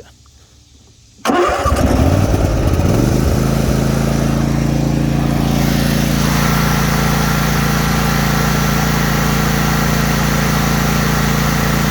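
Simplicity ZT1500 zero-turn mower's 23 hp Briggs & Stratton V-twin engine being cranked on choke and catching after about two seconds, then running steadily and smoothly at high throttle. A faint steady whine joins in about six seconds in.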